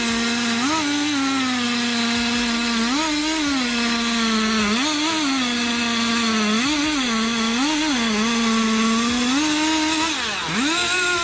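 Two-stroke chainsaw running steadily, its engine pitch rising briefly about six times and dipping once near the end.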